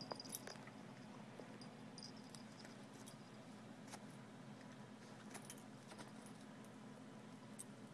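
Faint, scattered light metallic clicks and jingles from a terrier mix's collar tags as the dog play-wrestles with a cat, the sharpest click just after the start, over a low steady room hum.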